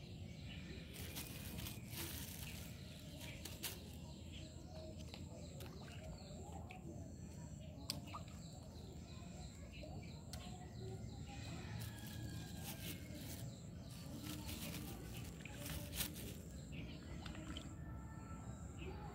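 Faint outdoor ambience: a steady low rumble, a few scattered bird chirps, and occasional sharp clicks, the loudest one about 16 seconds in.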